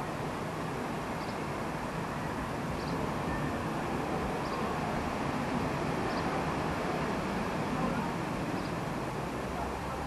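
Garden ambience: a steady low background rumble, with a bird's faint high chirp repeating about every second and a half.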